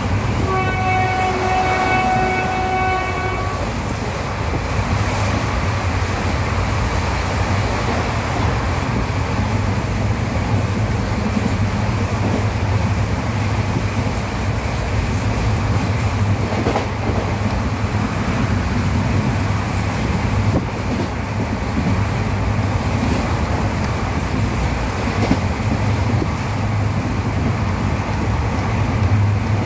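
Steady running noise of a moving Indian express train, heard from a passenger coach as it rolls along the track. A train horn sounds for about three seconds near the start.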